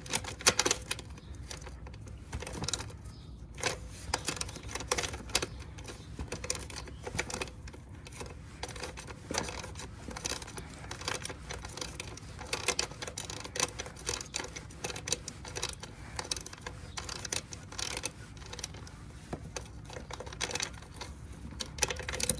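Irregular small clicks, taps and light rattles of hands and tools working on the plastic housing and parts of a Honda EU2200i generator during disassembly.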